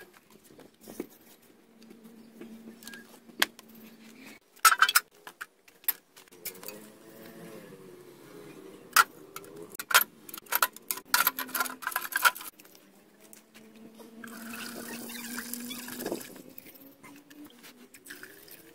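Rusty iron railroad spikes and a metal paint can clinking and knocking as they are handled and set down on a wooden stump, a string of sharp clicks. Later, liquid is poured from a plastic bucket into the metal paint can, a brief splashing rush.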